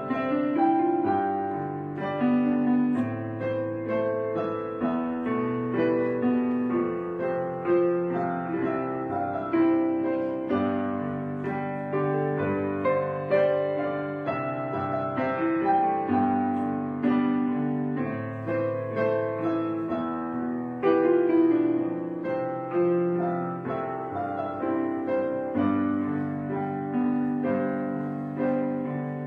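Background piano music: chords and melody notes struck at an even, unhurried pace.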